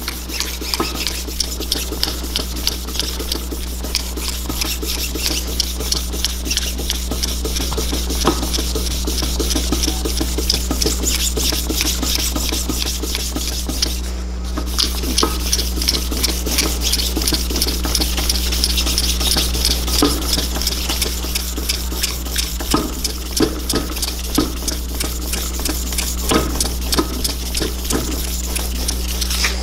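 1000-grit sandpaper rubbed hard back and forth by hand over the Honda CBX's aluminium clutch cover, a fast run of rasping strokes with a short pause about halfway through. This is the fine-grit sanding stage that takes out the scratches before polishing.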